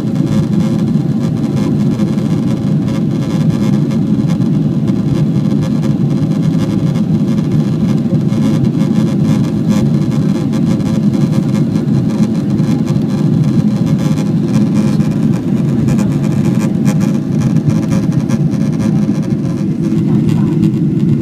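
Steady cabin noise inside a Boeing 777-200 climbing out after takeoff: a low, even drone of the jet engines and airflow, with faint steady tones above it.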